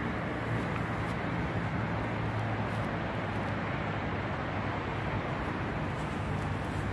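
Freight train of tank wagons rolling past at close range: a steady rumble of steel wheels on the rails with a low hum underneath.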